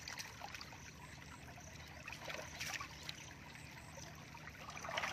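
Shallow muddy paddy water sloshing and trickling as hands grope through it and legs wade, with a few small splashes, one about halfway through and more near the end.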